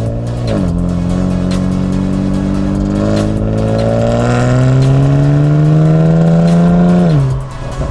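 Kia Stinger GT2's twin-turbo V6 through an MBRP cat-back exhaust, heard from outside the car, pulling through the gears. The revs dip quickly about half a second in, as at an upshift, then the engine note rises steadily for about six seconds under acceleration, and the revs fall away sharply near the end.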